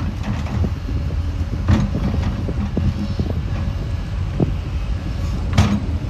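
Komatsu D61EX bulldozer working, its diesel engine running with a dense low rumble and steel tracks clanking, with two louder clanks, one about two seconds in and one near the end.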